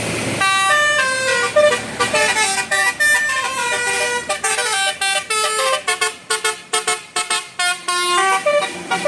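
Bus telolet basuri horn, a multi-tone musical horn, playing a quick melody of short notes that step up and down in pitch. About halfway through, the notes turn choppier, with brief gaps between them.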